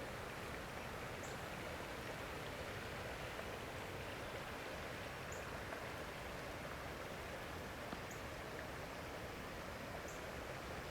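Steady rushing outdoor background noise, with a few faint high ticks about 1, 5, 8 and 10 seconds in.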